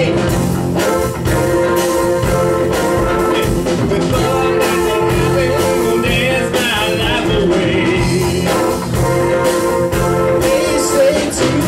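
Live band playing amplified rock music with drums and electric guitars, a lead vocal singing over it, with a wavering sung line about six seconds in.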